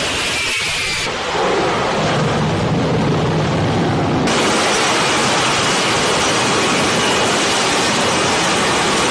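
F-35B Lightning II's F135 jet engine and lift fan running loud and steady during short take-off and vertical landing, a dense noise without any clear pitch. The sound changes abruptly twice, about a second in and about four seconds in, where the shots change.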